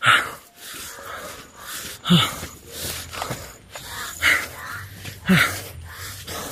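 A man breathing heavily, short hard breaths about once a second, a few with a low voiced edge.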